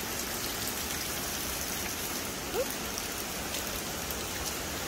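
Steady hiss of falling water, an even rushing with no breaks, from the rainforest waterfall area and the rain-soaked path. A short rising tone cuts through about halfway in.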